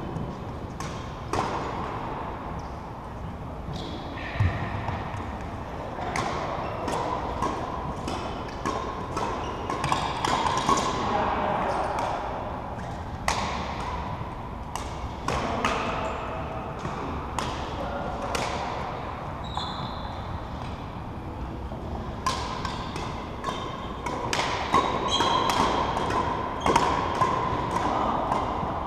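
Badminton hall ambience between rallies: irregular sharp taps of rackets striking shuttlecocks on nearby courts, over a murmur of indistinct voices.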